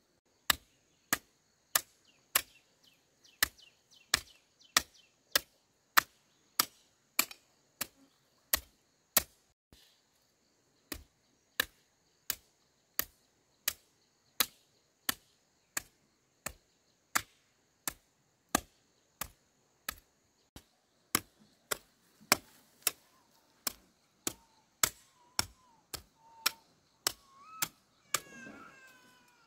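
A garden hoe striking into the ground again and again in a steady rhythm, a little under two strokes a second, with a short pause about ten seconds in.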